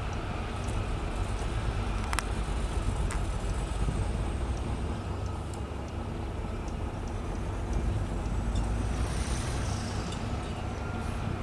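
Diesel engine of heavy road-building machinery running steadily under load, with a sharp click about two seconds in and a faint high whine that rises and falls near the end.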